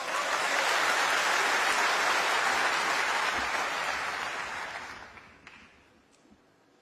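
Snooker arena audience applauding, swelling up at once, holding for a few seconds and then dying away.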